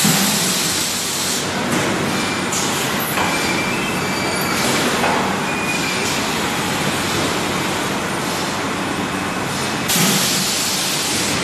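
Steady mechanical noise of running bottling-plant machinery, a dense hiss with a few faint high whines, getting briefly louder about ten seconds in.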